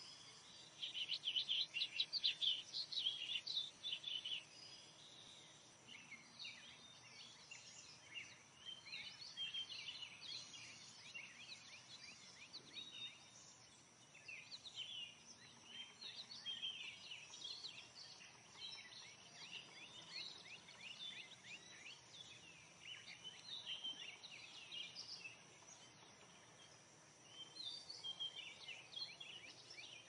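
Female rose-breasted grosbeak singing: a rapid phrase of short, sharp, high notes about a second in, the loudest part, then quieter bursts of similar warbled notes on and off.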